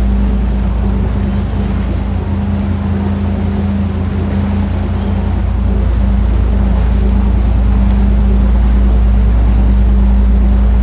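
Cruise boat's engine running steadily, a low rumble with a constant hum, under the wash of the sea.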